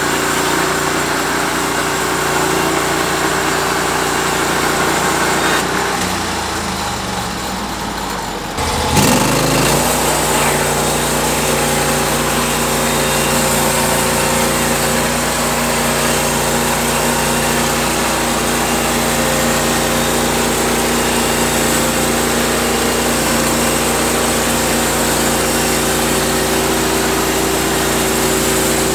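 Sawmill engine running steadily; a few seconds in it drops back, then about nine seconds in it picks up speed again with a quick rise in pitch and runs on steadily.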